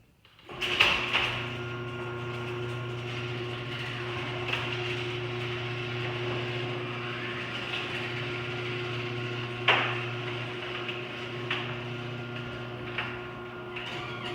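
LiftMaster 8365 chain-drive garage door opener starting about half a second in, then its motor humming steadily as the chain drives the door along the rail. A sharp knock comes partway through.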